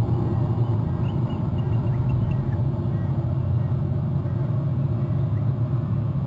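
A steady low rumble runs throughout. A few faint, short, high chirping bird calls come about a second in.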